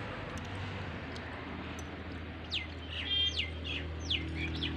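Small birds chirping: several short, quick falling calls in the second half, one of them a brief rapid trill, over a low steady hum.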